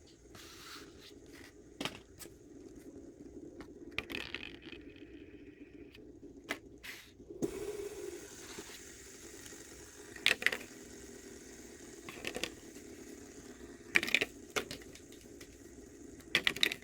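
Handling noises: scattered clicks and scrapes, with a few sharper knocks about ten, fourteen and sixteen seconds in, over a faint steady hum.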